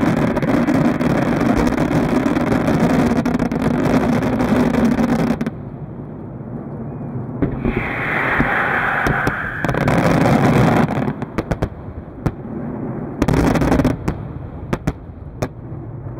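Aerial fireworks display: a dense barrage of bursts and crackling that drops off suddenly about five seconds in, then scattered sharp bangs and crackles with two brief louder flurries.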